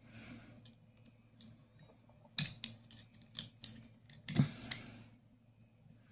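Lock cylinder being worked into a Honda Civic steering lock assembly, making a run of sharp metal clicks and knocks lasting about two seconds in the middle.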